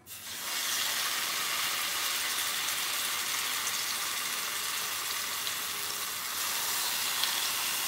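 Marinated chicken thigh sizzling in hot oil in a frying pan, skin side down. The sizzle starts abruptly as the meat goes in and then holds as a steady hiss.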